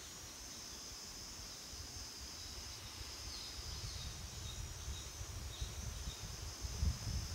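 Steady high-pitched insect chorus, with a few short bird chirps in the middle and wind rumbling on the microphone, stronger near the end.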